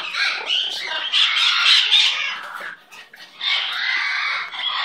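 Pet conure making harsh, squeaky squawking calls, with a short break about three seconds in before the calling starts again.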